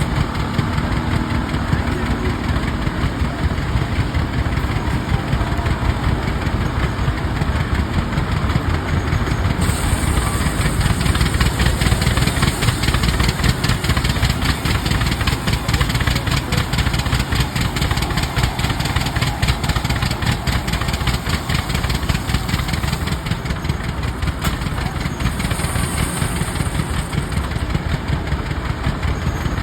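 Rumely OilPull tractor engines, slow-turning twin-cylinder kerosene engines, running steadily with an even, rapid firing beat.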